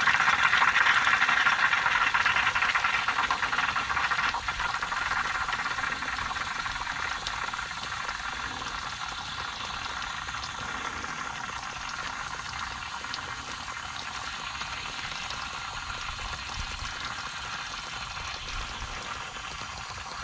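Cleaner being forced through an RV's transmission cooler lines, hissing and spluttering as it blows old fluid and gunk out of the open line into a rag. The hiss is loudest at first and slowly fades.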